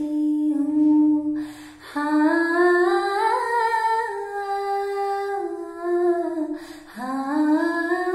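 A woman singing a slow Hindi ballad alone, with no accompaniment, holding long notes and sliding between them. She pauses twice for breath, about one and a half seconds in and again near the end.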